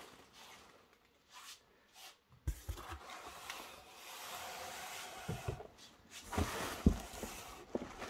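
Cardboard packaging rustling and scraping as a boxed model locomotive is taken out of a shipping carton, with a few soft knocks and one louder thump near the end as the box is set down on a table.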